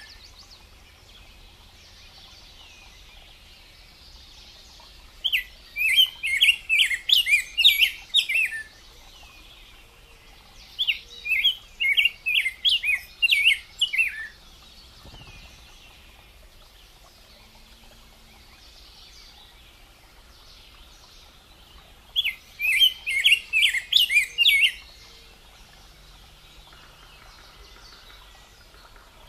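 Rose-breasted grosbeak (degollado) singing: three warbled phrases of quick whistled notes, each about three seconds long, with pauses of several seconds between them.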